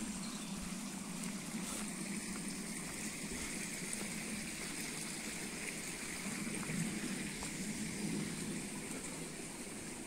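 Shallow forest stream flowing over fallen branches and debris: a steady rush of water.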